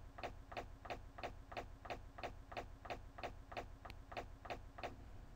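Clock ticking sound effect, about three even ticks a second, over a low steady hum. It starts and stops abruptly.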